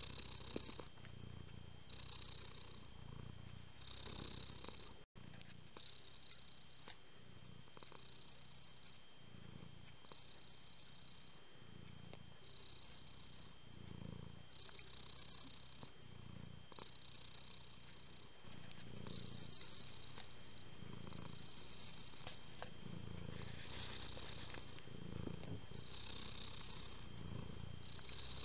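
Domestic cat purring steadily, the purr swelling and easing in slow even waves with each breath in and out, a little over a second apart. It gets slightly louder about two-thirds of the way through.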